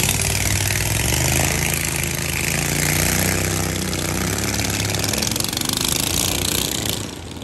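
Long-tail boat's engine running steadily as the boat passes close by, with the hiss of its propeller wash; the sound drops off suddenly near the end.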